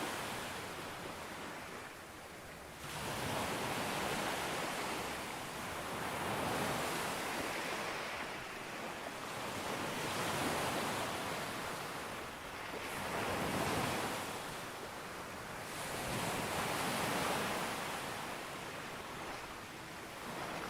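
Surf breaking on a beach: a steady wash of waves that swells and ebbs about every three to four seconds, with a sharp surge about three seconds in.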